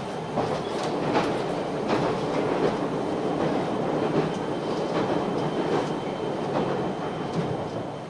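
Cabin noise of a JR Shikoku KiHa 185-series diesel railcar under way: a steady rumble with irregular clicks of the wheels passing over rail joints.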